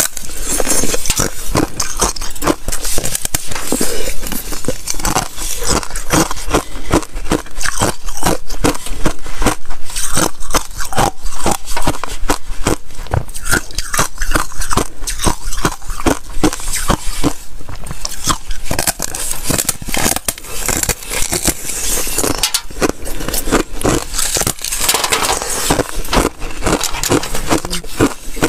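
A thin sheet of clear ice being bitten and chewed close to a microphone: a dense, unbroken run of crisp crunches and cracks.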